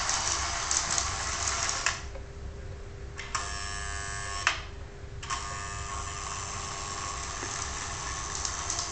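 Lionel 2338 GP7 toy diesel locomotive running around a loop of track: its electric motor and gears whir steadily, growing fainter and louder again as it goes round, with a sharp click about four and a half seconds in. The locomotive is freshly cleaned, oiled and greased and runs smoothly.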